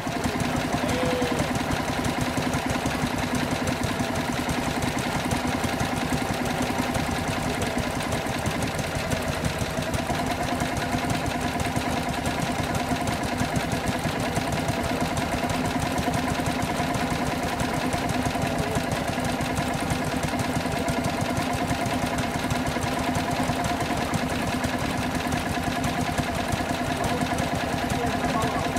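1940s stationary engines running steadily, with an even, fast beat that does not change.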